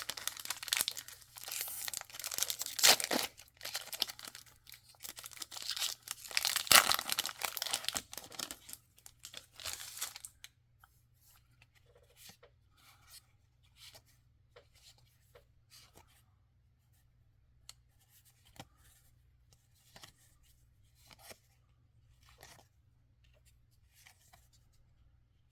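Foil wrapper of a Magic: The Gathering play booster pack being torn open and crinkled for about ten seconds. After that come only faint clicks and light rustles as the cards are handled.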